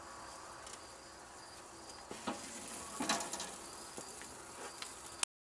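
Outdoor ambience of insects chirping steadily, with a couple of brief faint knocks about two and three seconds in; the sound cuts off abruptly to silence near the end.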